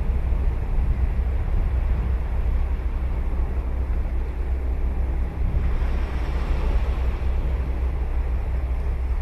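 Ocean surf washing on a sandy beach, a steady wash that brightens about halfway through as a wave breaks, under a strong low rumble of wind on the microphone.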